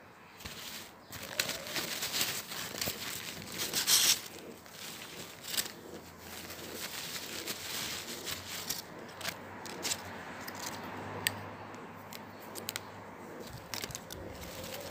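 Plastic packaging of a rapid antigen test kit crinkling and rustling as it is handled, with scattered short clicks and taps; the loudest crackle comes about four seconds in.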